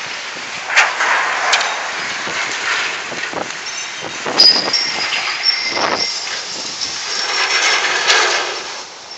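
Hurricane-force wind gusting hard across a phone microphone, with a few sharp knocks and a thin, high whine that comes in about halfway through and runs nearly to the end.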